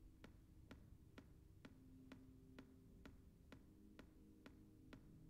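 Faint, regular ticking, about two ticks a second, over a soft, low, steady drone.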